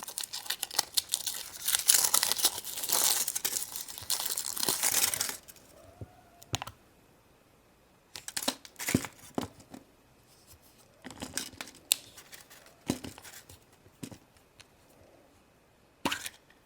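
Foil wrapper being torn and crinkled off a chocolate surprise egg: dense crinkling for about five seconds, then scattered crinkles and clicks.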